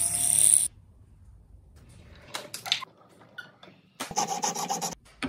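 Silversmithing sounds in quick succession. A high whine from a rotary burr cutting a seat into a silver setting stops abruptly under a second in. A few scratching strokes follow, then about a second of noisy clattering from a rolling mill pressing silver, ending with a sharp click.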